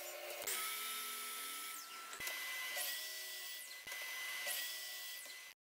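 Sliding miter saw crosscutting white oak boards: the motor whines up, cuts and winds down in several short cuts one after another.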